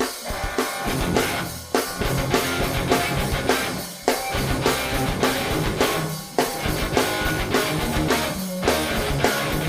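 Live rock band playing a song's instrumental intro: electric guitar, bass and drum kit starting up together with a steady beat.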